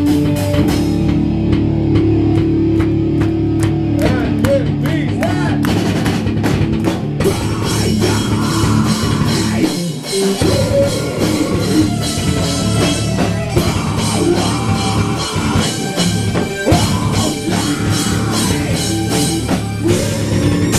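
Metal/post-hardcore band playing live, with electric guitar over a Pearl drum kit, loud and dense, and a brief drop in level about halfway through.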